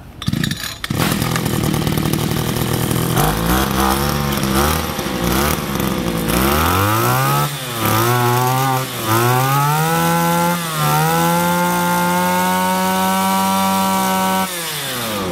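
Stihl FS26 two-stroke brush cutter engine catching on the pull start within the first second and idling. It is then revved up and down several times, held at high revs, and drops back sharply near the end. It runs crisply, fitted with a newer 260-type replacement carburettor.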